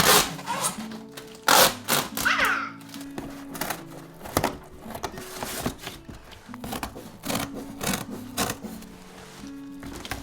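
Background music with a steady run of notes, over irregular clicks, knocks and brief scrapes from cardboard boxes being cut and handled.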